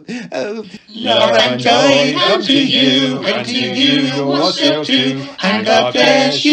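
Music: a moving melody over a steady low drone, starting about a second in, with a brief break near the end.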